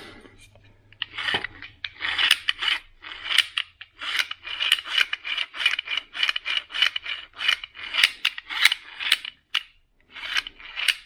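Rough, rasping scrape repeated about two times a second from the BMW M6 throttle actuator's gear train being worked by hand, with the gears binding and sticking.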